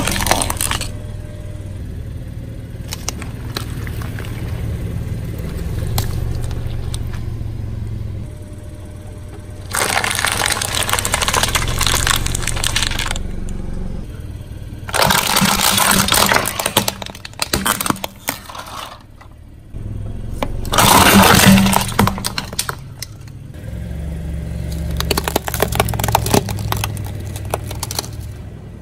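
A car tyre rolling over plastic toys and crushing them: several loud cracking, crunching bursts, each lasting one to three seconds, with a steady low hum underneath between them.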